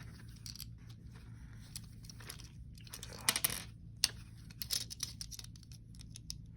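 Plastic LEGO pieces being handled and fitted: scattered small clicks and clatters, with a brief rustle about three seconds in.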